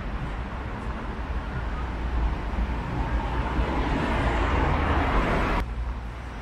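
Road traffic: a steady low rumble with a passing vehicle's tyre noise swelling over a few seconds, cutting off suddenly near the end.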